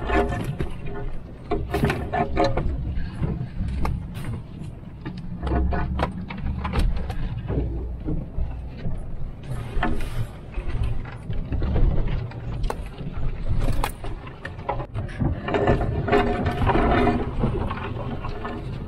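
Inside a truck's cabin: the engine and tyres rumble at low speed through deep snow, while snow-laden branches repeatedly scrape and knock against the windshield and body and clumps of snow hit the glass.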